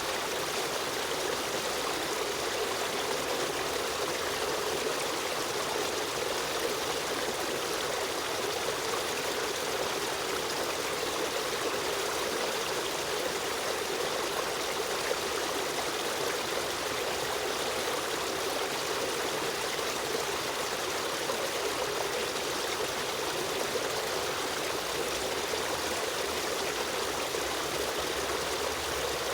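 Stream water running and trickling over rocks in a steady, unbroken flow.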